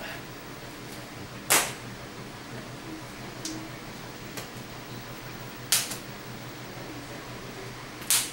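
Stretched latex snapping sharply as it is pulled over a bald head: three loud snaps, about a second and a half in, near six seconds and again near the end, with a couple of fainter snaps between them.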